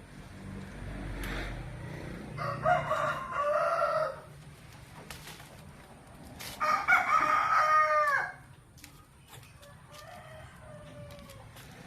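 Rooster crowing twice, each crow about two seconds long, the second ending in a falling note, with fainter chicken calls around them.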